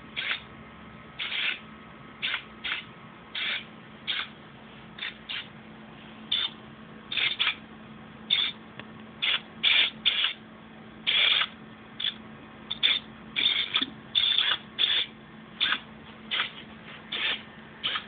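Small hobby servo motors inside a toy-sized robot body running in short, stop-start bursts of whirring, one to three bursts a second at irregular spacing.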